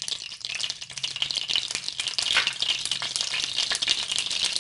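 Hot cooking oil heating in a nonstick kadai, crackling and sizzling with a dense run of fine pops. It cuts off suddenly at the end.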